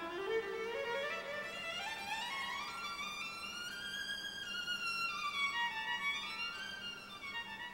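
Background music: a single melodic line that climbs steadily in pitch for about four seconds, then steps back down.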